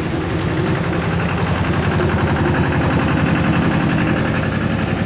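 Canal narrowboat's diesel engine running steadily with a fast, even chug.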